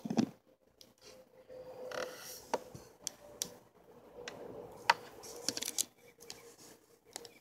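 Small plastic dolls and toys being handled: scattered light clicks and taps with short rustling as a doll is moved and a tiny toy cup is taken from its hand.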